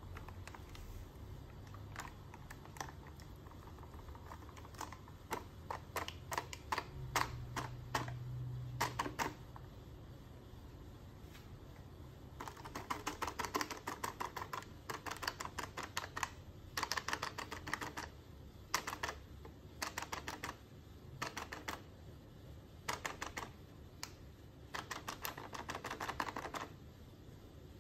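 A plastic Coffee-mate pouch crinkling and crackling as milk powder is shaken out of it into a Thermomix bowl. The crackling is scattered at first, then comes in several dense spells in the second half.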